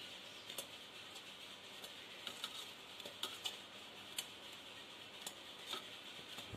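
Faint, scattered soft ticks and taps as fried gulab jamun are dropped one at a time into warm sugar syrup in a steel pan, over a faint steady hiss.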